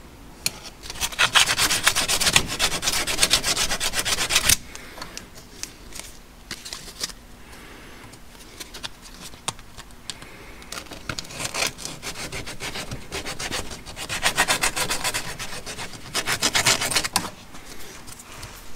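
Sandpaper rubbed by hand back and forth over the plastic-covered handle of a vintage locking wrench held in a vise: three spells of quick, even scratching strokes with short pauses between.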